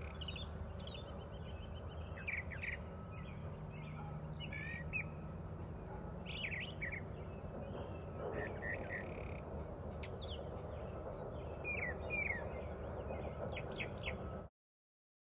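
Small birds chirping and calling in short phrases over a steady low background noise; the sound cuts off suddenly near the end.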